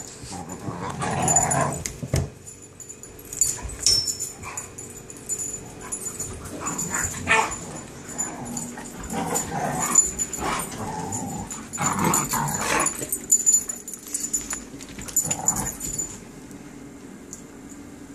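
Dogs play-fighting: a pit bull-type dog and puppies growling and yipping in short, irregular bursts, with scuffling. It quietens near the end.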